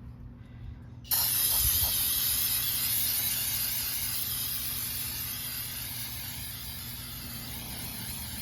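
A long, continuous hiss of pressurised spray that starts suddenly about a second in and slowly weakens, typical of cleaning dirt off motorcycle parts.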